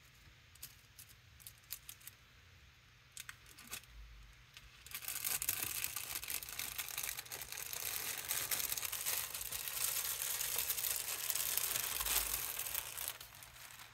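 Sheet of white tissue paper being peeled slowly off a tacky, paint-inked gel printing plate, crackling and crinkling as it comes away. It starts about five seconds in and lasts about eight seconds, after a few small taps from the handling.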